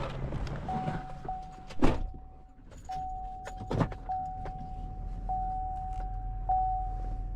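A steady electronic warning tone sounds from about a second in, with a small break or click in it about every second and a bit. Two loud knocks come, about two and four seconds in.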